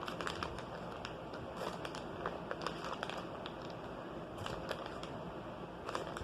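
Faint scattered clicks, taps and light rustling of jalapeño slices and their container being handled to top a pizza.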